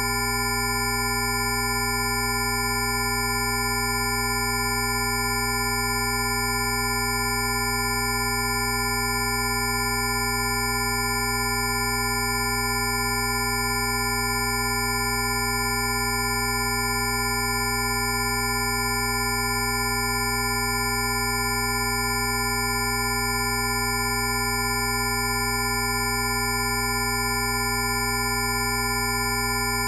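Rife frequency tones: several steady pure tones at different pitches, from a low hum to a high whistle, sounding together and holding unchanged throughout.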